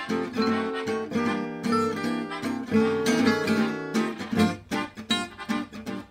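Background music: an acoustic guitar strumming and plucking chords.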